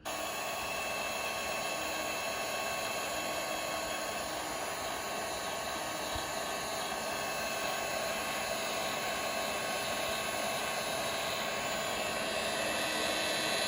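Electric heat gun running steadily, its fan blowing hot air with a steady whine, used to thaw ice off frozen fasteners.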